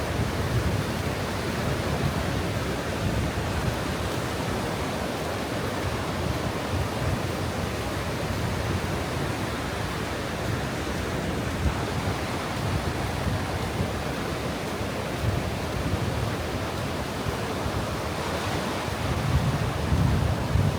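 Steady rush of breaking surf mixed with wind, the wind buffeting the microphone in low rumbles. It grows a little louder near the end.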